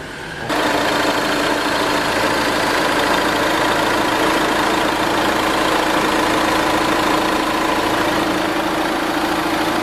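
Renault Master van's diesel engine idling steadily, heard close with the bonnet open; it starts abruptly about half a second in.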